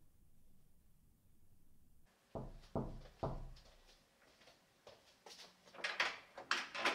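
Three knocks on a door, about half a second apart, then a quick run of sharp clicks and rattles near the end.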